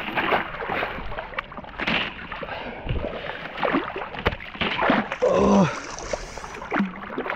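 Hands splashing in icy lake water and breaking up a thin sheet of surface ice: many short splashes and cracks. A person's voice sounds briefly about five seconds in.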